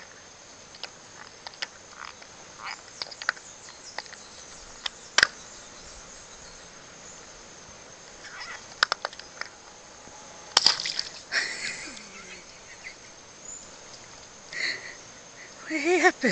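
A vervet monkey chewing and handling a green rubber balloon: scattered rubbery squeaks and small taps, then a sharp pop about ten and a half seconds in as the balloon bursts, followed by a second of crackling rubber. A steady high insect drone runs underneath, and a short voice-like sound falls in pitch at the very end.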